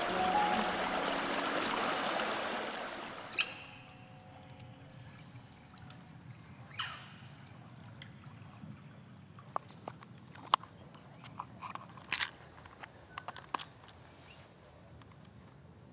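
A forest stream rushing, fading out about three to four seconds in. After it, quiet forest background with one brief sweep of sound about seven seconds in and a scatter of short sharp clicks and snaps later on.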